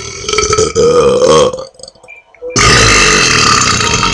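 Two long, loud belches by teenage boys in a burping contest. The first ends about a second and a half in. The second starts after a short pause and is still going at the end.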